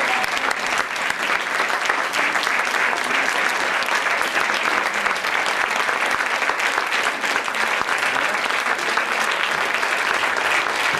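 Audience applauding steadily, many hands clapping at once in a dense, even patter.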